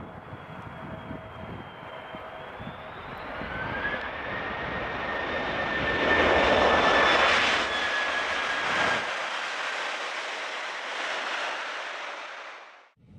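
Jet engines of a TAP Air Portugal Airbus A330 spooling up on its landing roll on a snowy runway. A whine rises in pitch about three seconds in, and the engine noise swells to its loudest around six to seven seconds. It then fades and cuts off just before the end.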